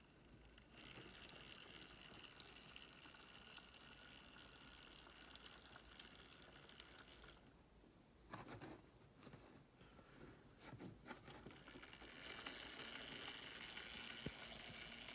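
Faint, steady whir of an OO gauge Lima Class 47 model diesel locomotive running along the track on its newly fitted CD replacement motor, with a few soft knocks partway through.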